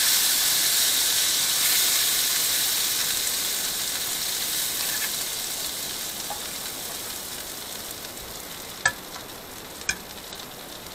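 Butter sizzling as it melts in a skillet that has probably got a little too warm, stirred with a fork. The sizzle gradually dies down, and the fork clicks against the pan twice near the end.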